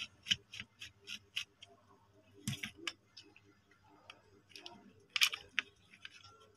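Small plastic clicks and taps as a hand mixer's motor and wiring are worked loose from its plastic housing: a quick run of light clicks in the first second and a half, then scattered clicks with sharper clacks about two and a half and five seconds in.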